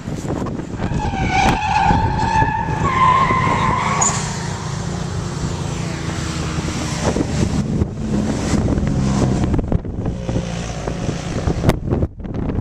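A car drifting: its tires squeal loudly for a few seconds near the start, over the steady sound of its engine running hard.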